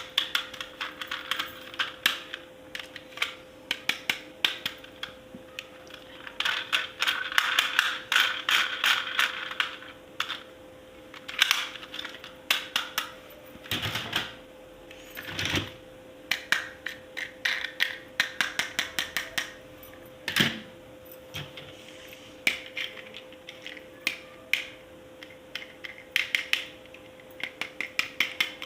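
Plastic toy parts and packaging being handled: rapid irregular clicks and taps, with bursts of crinkling, strongest a few seconds in. A faint steady hum runs underneath.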